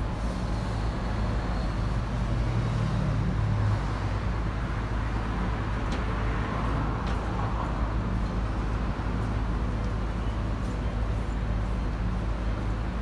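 Road traffic noise: a steady low engine rumble with a constant hiss of traffic, and one engine's hum grows louder for a couple of seconds early on.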